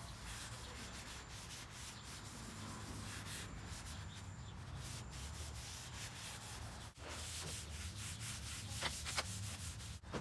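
Cloth rag rubbed back and forth over a wooden panel, wiping on wood stain: a steady rubbing with repeated strokes, broken briefly about seven seconds in.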